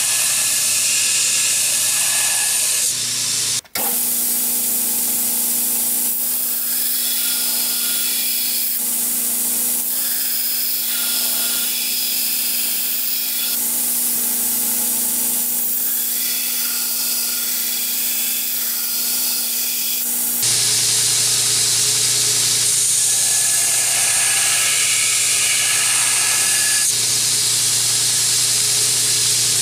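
Belt grinder running with its steady motor hum while a forged high-carbon steel straight-razor blank, made from an old file, is pressed against the belt. The grinding hiss swells and eases in passes a few seconds long as the bevels and grind lines are ground in.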